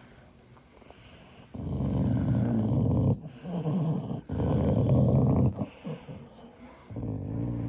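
Dog growling: a run of low growls starting about a second and a half in, in three or four stretches of about a second each with short breaks between.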